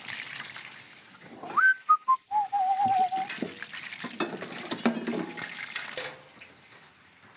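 A person whistles a short tune: a quick rising slide, two brief falling notes, then a longer wavering note. Under it is a steady hiss of oil frying in a pan, and a clatter of pans and utensils comes a couple of seconds later.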